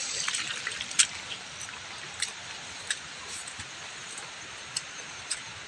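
Steady hiss of rain, broken by scattered sharp ticks.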